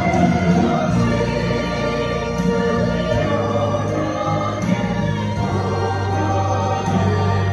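Choir singing a gospel hymn, over steady held low accompaniment notes.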